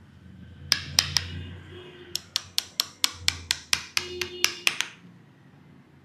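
Sharp slaps of a barber's hands striking the client in a percussive Indian champi massage: three slaps, then a quick, even run of about a dozen at roughly five a second.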